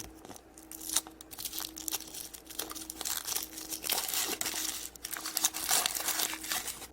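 Crinkly wrapper of a Peppa Pig chocolate surprise being handled and torn open, a continuous crackling and crumpling with many small crisp clicks.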